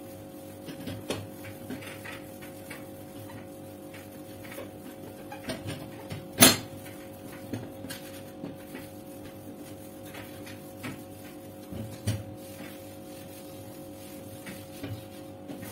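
Light clatter of cleaning a stainless steel gas stove top by hand with a cloth and spray cleaner: scattered small knocks and taps, one sharp knock about six and a half seconds in and a smaller double knock near twelve seconds, over a steady low hum.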